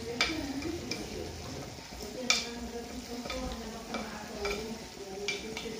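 A metal spoon stirring lamb and herbs in a clay tajine dish over a low sizzle as the meat browns. Several sharp clicks of the spoon against the earthenware come through, the loudest about two seconds in.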